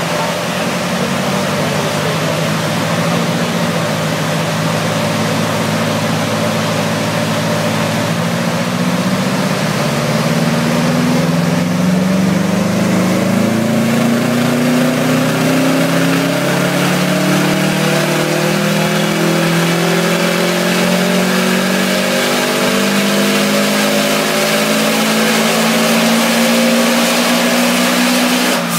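Tuned Subaru Impreza WRX STI's turbocharged flat-four engine and exhaust on a rolling-road dyno, pulling in gear: steady at first, then climbing slowly and evenly in pitch through the rev range for about 20 seconds, and dropping away suddenly at the end as the throttle is released after the power run.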